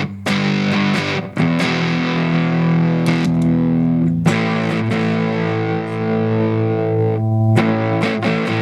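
Electric guitar on its neck humbucker played through a transistor fuzz pedal set to mid fuzz, with sustained distorted notes and chords. There are brief breaks about a second in, around four seconds in and near the end as the notes change.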